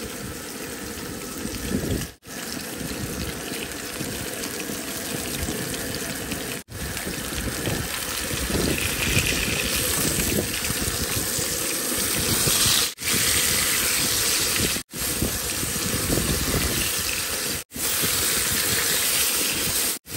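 Salmon fillets sizzling and spitting in hot oil in a frying pan, a steady hiss that grows brighter partway through. The sound cuts out briefly about six times.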